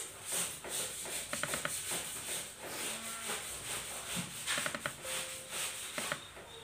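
Hands working a laptop's keyboard and touchpad: irregular clicks and rubbing.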